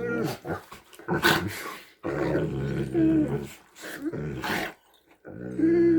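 Great Danes making their drawn-out "hippo noises": several long, low calls held at a steady pitch, broken by a few short sharp sounds.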